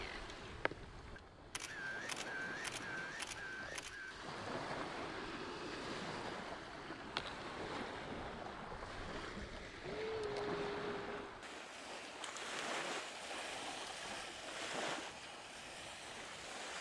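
Small surf breaking and washing on a sandy beach, with wind on the microphone. A couple of seconds in comes a quick run of five sharp clicks, each with a short chirp, and about ten seconds in a brief steady hum.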